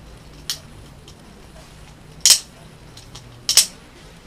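Flip Finz balisong trainer being flipped, its handles clacking together: three sharp clacks spread over the few seconds, the last a quick double.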